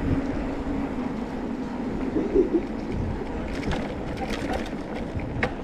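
Street ambience heard from a moving bicycle: a low rumble with a steady vehicle-engine hum in the first half, then a run of light clicks and ticks later on.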